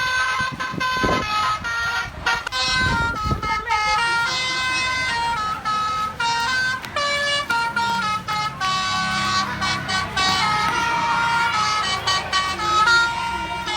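Basuri telolet horn on a bus playing a melody of short, quickly stepping notes. A low rumble joins underneath about eight seconds in.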